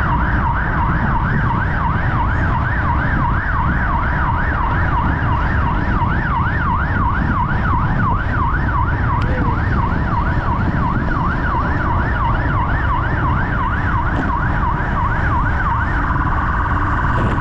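Emergency vehicle siren in a fast yelp, sweeping up and down about three times a second, changing to a steady tone near the end, over heavy low wind rumble on the microphone of the moving bike.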